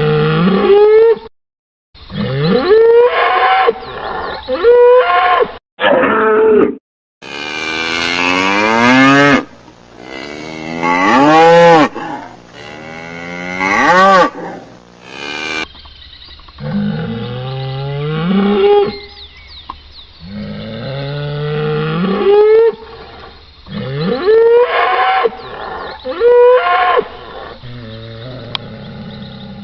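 Cattle mooing and bellowing: a series of long calls that rise and fall in pitch. They are spliced from several recordings, with abrupt cuts and short gaps between them.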